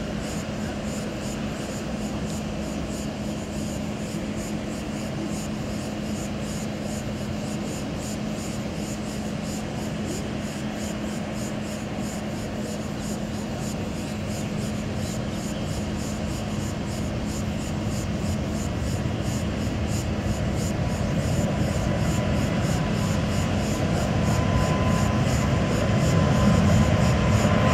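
Boeing 777-300ER's GE90 turbofan engines running at a distance: a steady rumble that grows gradually louder as the jet approaches, with a high fan whine emerging near the end.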